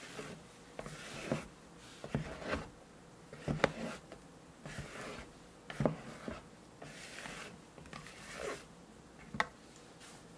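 A wire whisk, then a silicone spatula, working thick chocolate cake batter and meringue in a glass bowl: wet swishes and scrapes against the glass, with several sharp taps. This is meringue being folded into the batter.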